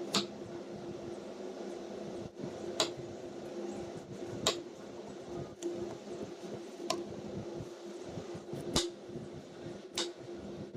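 A knife striking a cutting board while a mango is cut: about seven sharp taps, irregularly spaced a second or two apart, over a steady low hum.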